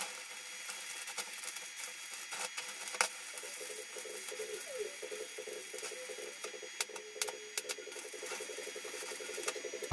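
Stick arc welding on steel: the electrode's arc crackling and sizzling steadily, with scattered sharp pops.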